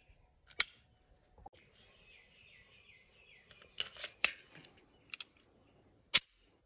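Glock 43 9mm pistol being loaded: sharp metallic clicks, with a cluster about four seconds in as the magazine is pushed into the grip and seats. Near the end comes the loudest single clack, the slide released and snapping forward to chamber a round.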